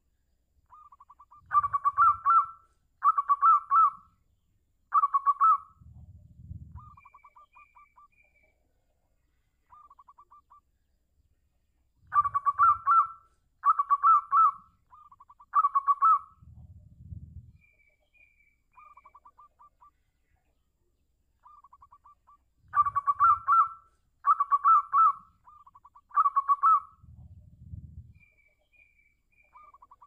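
Zebra dove (perkutut) singing in rapid staccato cooing trills. Each bout has three loud phrases in quick succession, then softer trills, and the bouts repeat about every ten seconds, three times in all.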